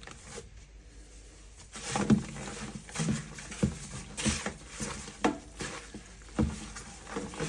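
Raw chicken pieces being rubbed and squeezed by hand to work dry seasoning into the meat: irregular wet squelches and soft slaps, starting about two seconds in.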